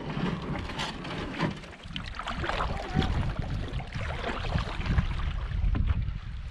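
A wooden canoe paddle stroking through lake water, with a steady low rumble of wind on the microphone.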